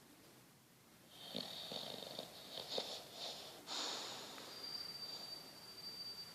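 English bulldog snoring: two snoring breaths, starting about a second in, the second carrying a thin high whistle.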